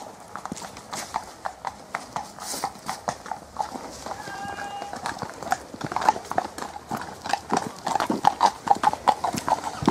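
Horses' hooves clip-clopping on a tarmac lane as several mounted horses pass close by, the strikes growing louder and quicker in the second half. A brief high pitched note sounds about four seconds in.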